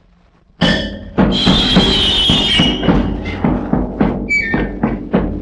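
Faint record hiss, then the music of a vintage radio jingle starts abruptly with a loud sustained crash. Steady drum beats follow, about three a second, with a short high whistle about four seconds in.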